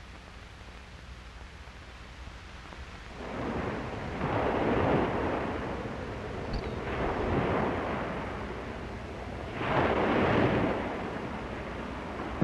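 Surf on a beach: waves rushing in, in three swells about three seconds apart, after a few seconds of faint low hum.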